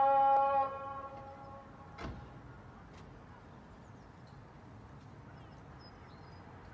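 A muezzin's sung call to prayer (adhan) from the mosque's minaret: a long held note ends within the first second and trails off with an echo. A pause follows, with faint outdoor background, a couple of light clicks and faint high chirps, before the next phrase.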